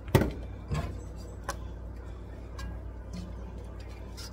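A few sharp clicks and knocks of a wooden spoon on an enameled cast-iron pot as thick soup is stirred. The loudest comes just after the start, followed by lighter, irregular knocks over the next few seconds, over a low steady hum.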